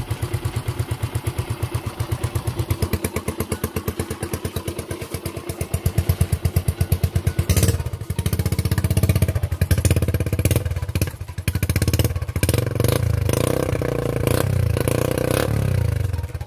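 Suzuki Raider J 110 motorcycle's single-cylinder four-stroke engine idling, then revved in short throttle blips from about halfway. Freshly fitted with a new cam and rocker arm, it runs with little valve-train ticking; mostly the exhaust is heard.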